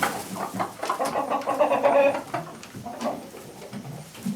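Chickens clucking and calling, a run of short pitched clucks in the first half.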